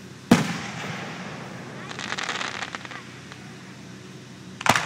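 Aerial firework shells bursting: a loud boom about a third of a second in, a stretch of rapid crackling about two seconds in, and another boom, doubled, near the end.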